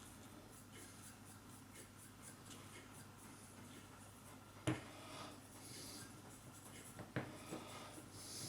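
Faint scratchy strokes of a small brush working Brasso polish over brass screwdriver parts, with a sharp light tap about halfway through and another a few seconds later.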